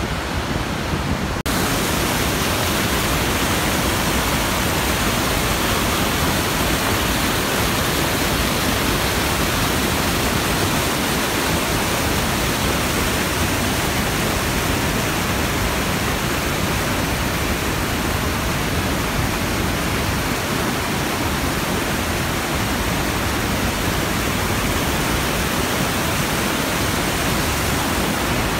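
Steady, loud rush of the Iguazu Falls cascades and the white water below them, an even noise with no breaks; about a second and a half in it suddenly becomes fuller and brighter.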